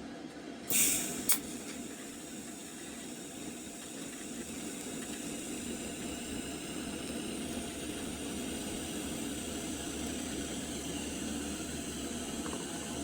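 Welding arc laying a bead on a steel bracket, a steady crackling sizzle. It is preceded by a short hissing burst and a click about a second in.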